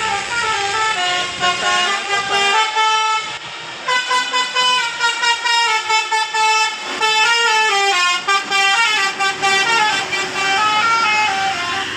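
Telolet basuri musical bus horn playing a melody of stepping notes, with a brief break about three and a half seconds in followed by a run of quick short notes.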